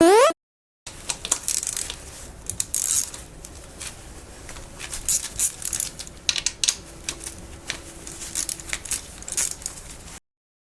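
Irregular metallic clicks, clinks and scrapes of hand tools and small metal parts, as in wrench work on motorcycle bolts. It opens with a brief loud rising tone.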